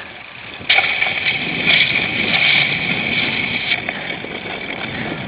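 Bicycle noise picked up by a camera mounted on the bike in a cyclocross race. Under a low rumble, a loud, high buzzing hiss starts suddenly about a second in and cuts off about three seconds later.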